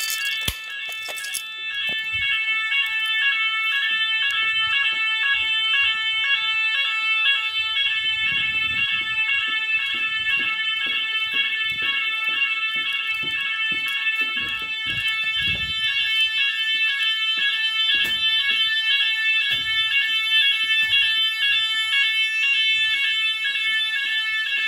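Evacuation sirens of a Chubb type 2a school fire alarm system sounding a general alarm during a test: several shrill, continuous high tones layered together, some of them pulsing.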